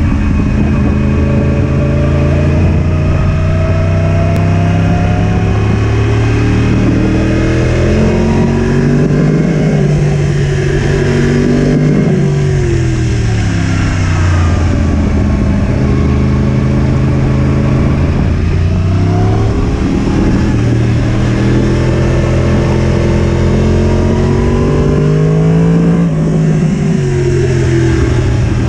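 Yamaha sport motorcycle engine ridden hard on track, its pitch climbing in steps through the upshifts and dropping sharply as it is braked and downshifted for corners, about three times over. Wind rush over the onboard microphone.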